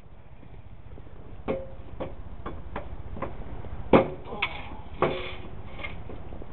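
A series of irregular sharp knocks and clanks, about a dozen over several seconds, some with a brief ring, the loudest about four seconds in.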